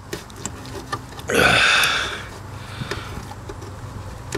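Light metal clicks of a socket and extension being worked on a spark plug in an engine bay, with one short, loud rushing noise about a second and a half in.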